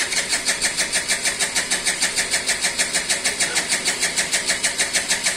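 Hero Duet scooter's single-cylinder engine running at a steady idle, an even pulse of about seven beats a second.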